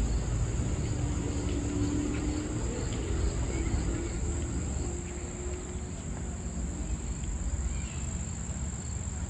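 Insects keeping up a steady, high-pitched, unbroken chorus over a low rumble, with a faint low hum in the first half.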